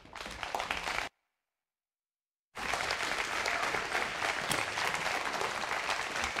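Congregation applauding, broken about a second in by a second and a half of dead silence where the recording cuts, after which the applause picks up again.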